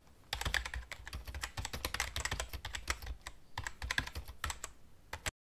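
Typing on a computer keyboard: rapid, irregular keystroke clicks that stop suddenly near the end.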